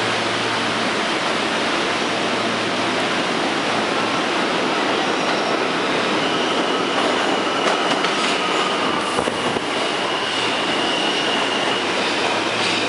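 New York City subway train of R160A/R160B cars running into an underground station and past the platform: a steady rumble of wheels on rail. A high, steady squealing tone joins about six seconds in, with a few sharp clicks as the cars go by.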